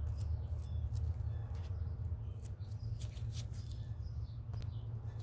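Small birds chirping faintly in short high notes over a steady low hum.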